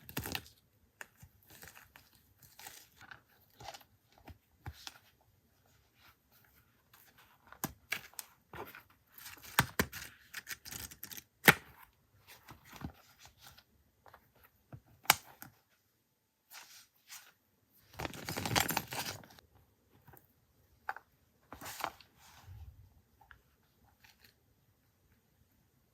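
Paper being handled for collage: scattered rustling, crinkling and tearing, with sharp clicks and taps, and a longer, louder rustle about two-thirds of the way through.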